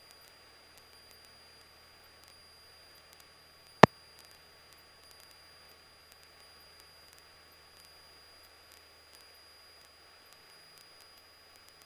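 Faint hiss and a thin, steady high whine on a cockpit radio and intercom feed between transmissions, broken once about four seconds in by a single sharp click.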